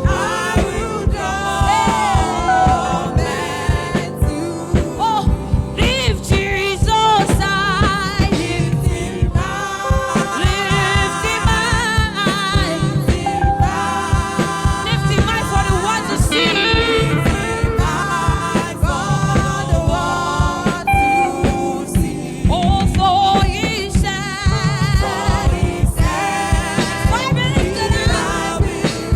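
Gospel praise singing with band accompaniment: wavering sung voice lines over a busy, steady drum beat and bass.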